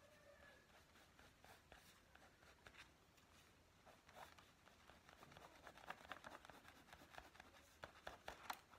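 Faint scratching of a pen on paper as short, quick strokes are drawn, busiest in the second half.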